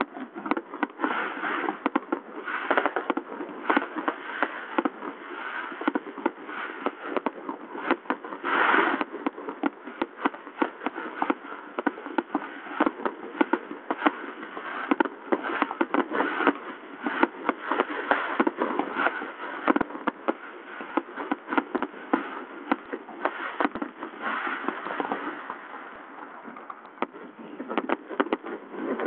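Fireworks display: aerial shells bursting in rapid succession, a dense, unbroken run of sharp bangs.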